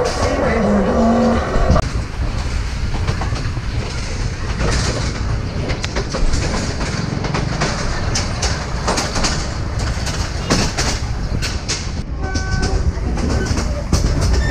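A Yangon Circle Train carriage running on the track: a steady low rumble with irregular clacks and rattles, heard from on board. Music fades out about two seconds in, and a brief pitched tone sounds near the end.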